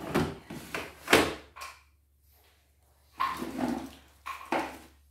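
Plastic embroidery unit knocking and clicking as it is slid and seated onto the embroidery machine's bed, with the loudest knock about a second in and more rattling knocks near the end. A low steady hum runs underneath.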